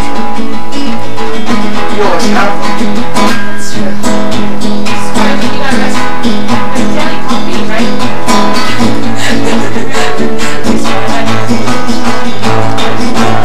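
Acoustic guitar being played, a steady run of plucked notes and chords.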